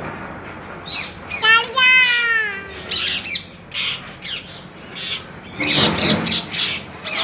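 Parrot calling and squawking: a drawn-out call sliding down in pitch about a second and a half in, then short harsh squawks around three seconds in and again near six seconds.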